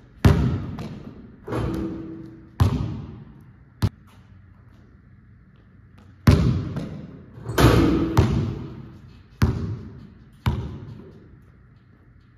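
A basketball bouncing on an indoor court floor and hitting the hoop, about ten separate thuds in two bunches with a pause of a couple of seconds between them. Each hit echoes around the large, high-ceilinged hall, and two of them carry a brief ringing tone.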